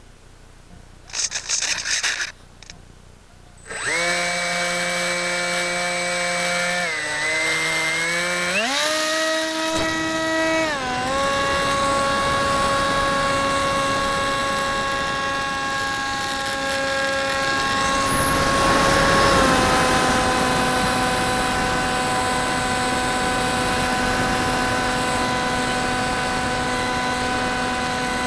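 Electric motor and propeller of a Typhoon 430 mini flying wing, heard from a camera on the plane. After a couple of loud noise bursts, the motor spins up about four seconds in to a steady whine whose pitch drops and rises with the throttle a few times, then holds steady in flight.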